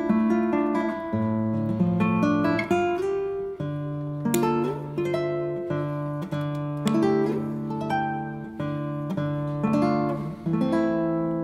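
Background music: an acoustic guitar playing a melody of plucked notes.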